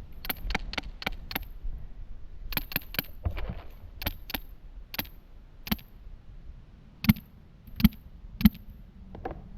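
Paintball markers firing: a string of sharp pops, quick runs of four or five in the first second and a half, then single and paired shots, with the three loudest near the end.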